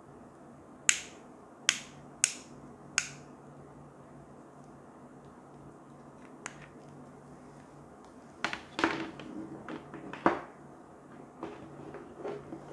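Inline rocker switch on a black power cord clicked four times in quick succession. A few seconds later the cord and its plastic plugs are handled and knock together as the cables are set down.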